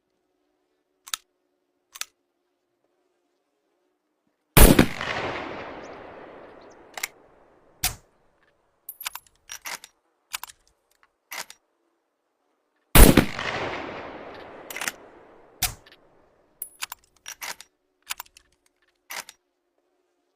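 Improvised rifle sound effect: two loud gunshot-like bangs about eight seconds apart, each with a long fading tail. Short sharp clicks come before, between and after the bangs.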